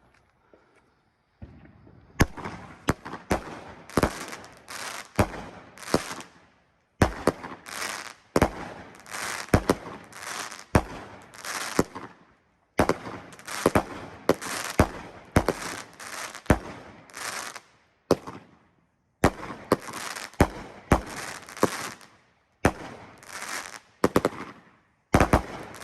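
A 19-shot consumer firework cake firing: a rapid run of sharp shots and crackling shell breaks, coming in several volleys with short pauses between, starting about a second and a half in.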